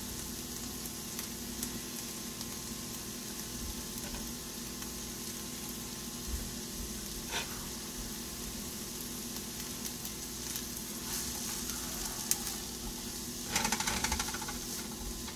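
Diced onion and bell pepper sizzling steadily in oil in a frying pan. Near the end a spatula stirs and scrapes the vegetables around the pan.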